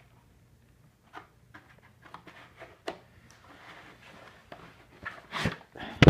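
Handling and pulling apart cardboard and styrofoam packing while unboxing a small fan: scattered rustles, scrapes and light knocks, with a louder knock about five and a half seconds in and another near the end.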